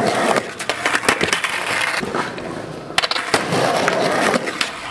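Skateboard wheels rolling over rough concrete, a continuous grinding rumble scattered with sharp clacks and knocks from the board.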